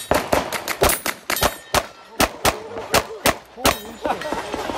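Rapid pistol fire from a practical-shooting stage run, shots coming about four a second with steel targets ringing between them. The shooting stops after about three and a half seconds, and voices follow.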